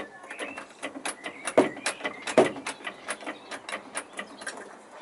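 Trolley jack being pumped by its long steel handle: a run of irregular metallic clicks and clanks from the handle and mechanism, with two louder knocks about a second and a half and two and a half seconds in.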